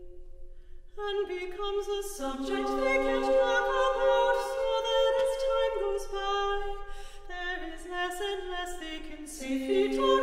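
Women's vocal ensemble singing a cappella in close harmony, holding long notes. One voice sounds alone at first, then more voices enter about one and two seconds in.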